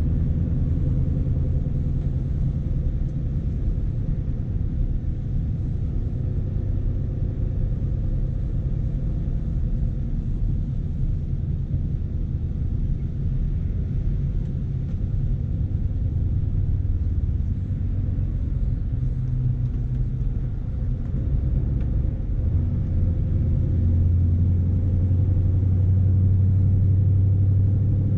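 Scania S520's V8 diesel engine running as the heavily loaded truck drives, heard from inside the cab as a steady low drone. The drone grows louder and fuller near the end, as the engine takes on more load.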